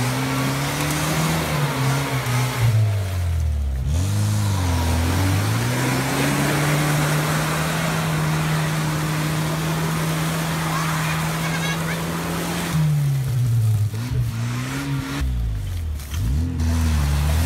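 UAZ 469 off-roader's engine revving hard as it churns through deep mud. The revs rise and fall several times, hold high for several seconds, then drop and surge again near the end, over a steady hiss of churning mud and water.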